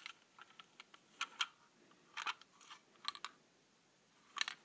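Irregular small plastic clicks and taps from a Plarail toy train car being handled and turned over in the hands, in a few short clusters.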